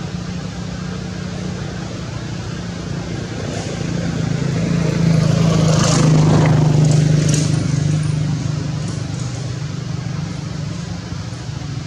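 A motor vehicle going past: a low engine hum that grows louder to a peak about six seconds in, then fades.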